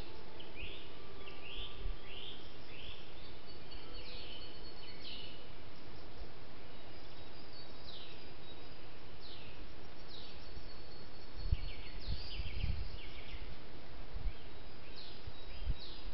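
Small wild birds singing in woodland, a string of short high chirps that sweep downward in pitch, over the steady hiss of a trail camera's microphone. Some low rumbling bumps come through about eleven to thirteen seconds in.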